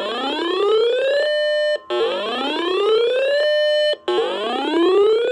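Electronic whooping alarm tone: a rising sweep that climbs for just over a second, holds its top pitch briefly and cuts off, repeating about every two seconds.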